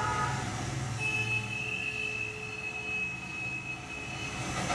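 Darjeeling Himalayan Railway steam train's wheels squealing on a tight curve: a single high steady squeal starts about a second in and lasts about three seconds, over the low rumble of the moving train.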